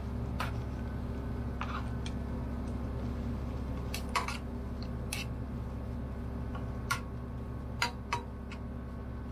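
A plastic spatula stirring and tapping garlic slices in a nonstick skillet: a handful of short, sharp clicks spaced irregularly over a steady low hum.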